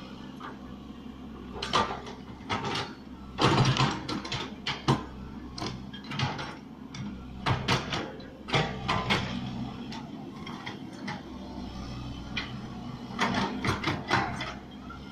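Excavator engine running steadily under irregular metallic clanks and knocks from the bucket and arm working soil, the loudest cluster about three and a half seconds in and more near the middle and the end.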